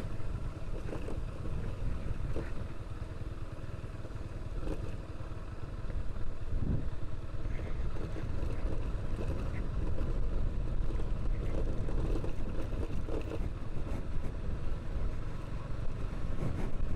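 Kansas 150 motorcycle's single-cylinder engine running while riding, mixed with wind noise on the microphone; it gets a little louder about six seconds in.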